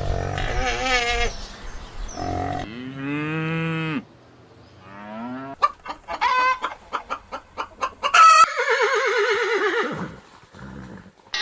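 A cow mooing and chickens clucking: separate farm animal calls one after another, including a long low moo, a quick string of short clucks, and a long call that falls in pitch.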